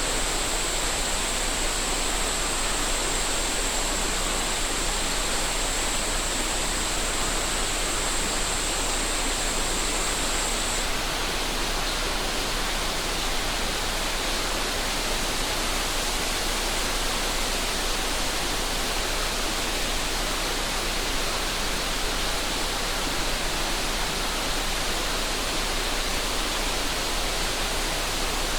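Steady rush of a mountain river, with a cicada's thin, continuous high buzz over it that cuts off about eleven seconds in.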